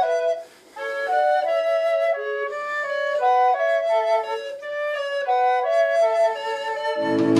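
Concert flute and wooden recorder playing a woodwind duet: two quick, interleaved melodic lines of short notes. Low accompaniment comes back in near the end.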